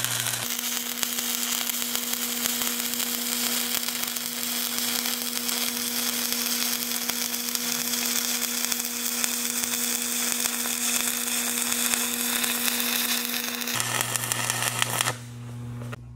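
Stick-welding arc from a 7018 electrode, crackling steadily with a hum underneath as a fill pass is run in a beveled test plate joint. The crackle stops about a second before the end as the arc is broken.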